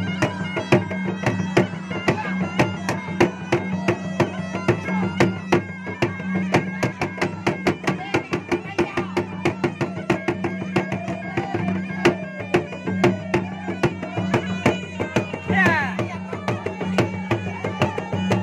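Makassarese gendang drums beaten in a fast, dense rhythm with a stick and the bare palm, with a pui'-pui' double-reed pipe playing a continuous, nasal melody over them.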